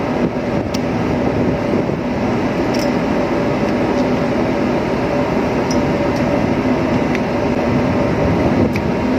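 Steady drone of a ship's machinery and ventilation, a dense unchanging noise with two steady hum tones in it, and a few faint clicks.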